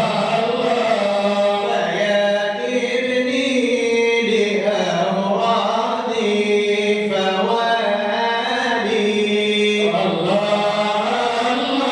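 Arabic devotional chanting of a madih, a Sufi praise poem for the Prophet, sung in long held, ornamented vocal lines.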